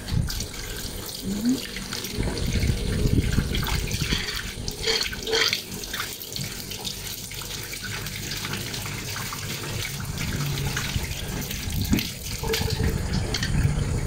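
Water stuck in a clogged washing machine pouring out of its opened drain valve and splashing onto a tiled floor. It runs steadily, with a few sharp plastic clicks and scrapes about a third of the way in and again near the end as the valve cap is handled.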